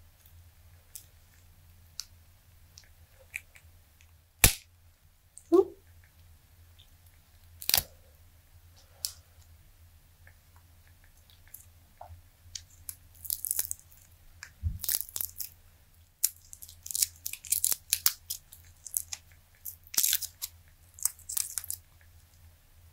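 Flexible silicone resin-dice molds being squeezed and peeled off cured resin dice. There are a few sharp clicks and a short rubbery squeak in the first several seconds, then a long run of crackling as the silicone comes away from the resin in the second half.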